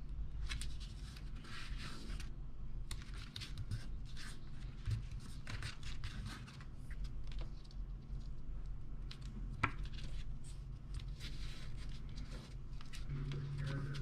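Painted collage paper being handled, slid and pressed down by hand: a stream of short rustles and scratches, with one sharp click about two-thirds of the way through, over a steady low hum.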